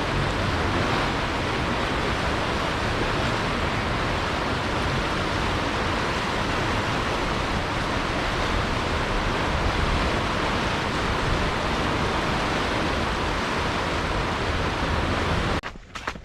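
Steady, even rushing noise with no rhythm or pitch, the kind of ambient wash used in relaxation tracks; it cuts off suddenly just before the end.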